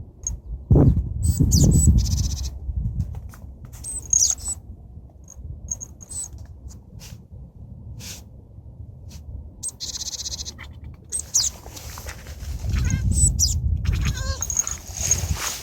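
Cat chattering: short high chirps and rapid clicking squeaks, bunched near the end. Low rumbling from wind or handling noise comes twice.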